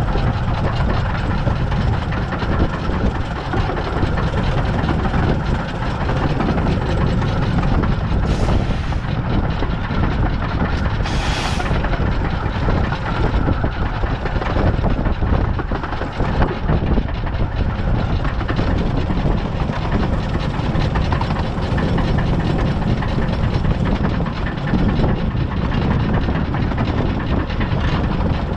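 Narrow-gauge 2-8-2 steam locomotive River Mite running along the line, a steady rumble of the engine and wheels on the rails, with two brief hisses about eight and eleven seconds in.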